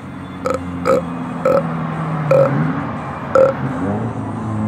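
A long, drawn-out burp, low in pitch and wavering, broken by several short, sharp pops.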